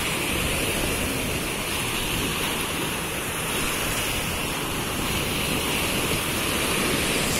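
Sea surf breaking and washing up a sandy beach, a steady rush of water.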